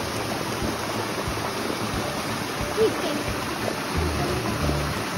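Small mountain stream and waterfall rushing over rocks, a steady, even rush of water. A low rumble joins it near the end.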